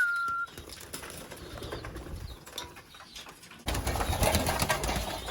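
A short human whistle, dipping slightly in pitch and then held, calling racing pigeons. About three and a half seconds in, louder wing flapping and cooing from the pigeons starts suddenly.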